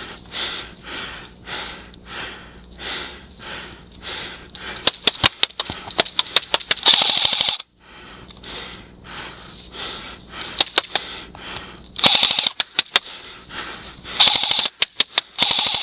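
Airsoft rifle firing in rapid bursts of sharp clicks, several bursts through the second half. Underneath, a soft rhythmic rustle runs at about two a second.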